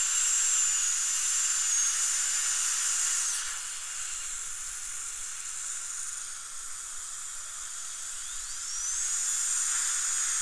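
Dental drill whining at a high, steady pitch as it cuts into a decayed molar, over a steady hiss of air and water spray. The whine winds down and stops about a third of the way in, leaving only the hiss, then spins back up with a rising whine a couple of seconds before the end.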